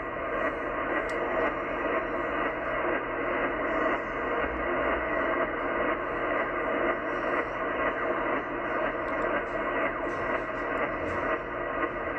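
Yaesu FTdx10 transceiver receiving in upper sideband just above 25 MHz: a steady rushing, hiss-like noise from a very wide signal that the operator takes for CODAR ocean radar, which sounds like fast sweeps.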